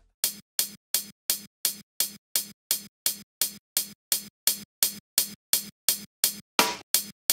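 A sampled hi-hat loop playing straight eighth notes quantized to the grid, about three strikes a second and evenly spaced, with no swing. A couple of strikes near the end are louder and fuller.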